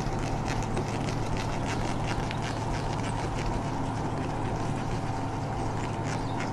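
Blackboard duster rubbing across a chalkboard in short, repeated scratchy strokes as the chalk writing is wiped off, over a steady background hum.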